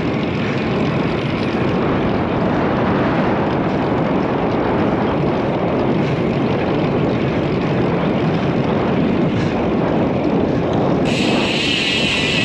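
Steady rush of wind on the microphone mixed with tyre noise from a road bike rolling on asphalt. About eleven seconds in, a higher-pitched hiss joins it.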